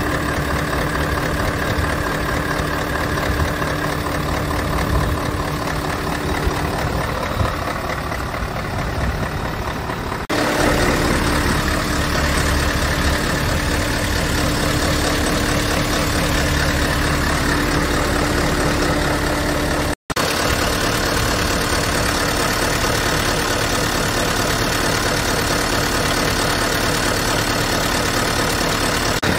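Scania R580's V8 diesel idling steadily, heard close to the engine and chassis. The sound changes abruptly about ten seconds in and drops out for an instant about twenty seconds in.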